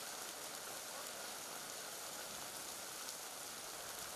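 Rain falling steadily, an even hiss.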